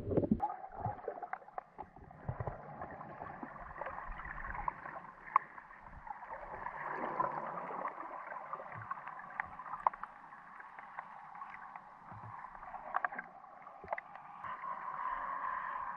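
Sea water sloshing and gurgling, with scattered small clicks and knocks.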